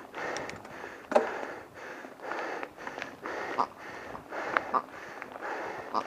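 Cyclist breathing hard and fast while climbing a steep hill, in quick rhythmic breaths. A sharp click about a second in is the loudest sound, and a few lighter clicks follow.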